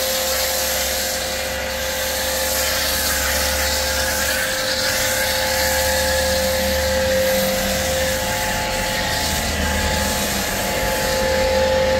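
Pressure washer running with a steady whine while its water jet hisses against the car body, rinsing off snow foam.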